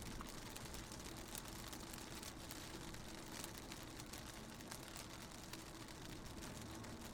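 Raindrops hitting a car window, heard from inside a moving car: many small scattered ticks of drops over a steady low rumble of the car running on the road.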